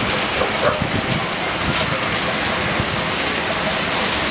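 Steady rain falling, an even hiss with scattered short taps of drops landing close by.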